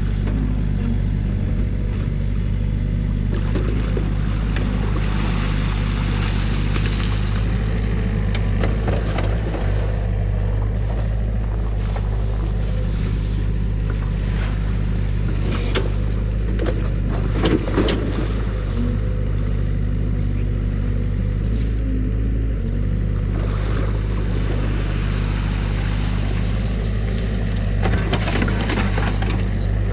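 A New Holland mini excavator's diesel engine running steadily while it digs, with a cluster of sharp cracks and knocks about halfway through.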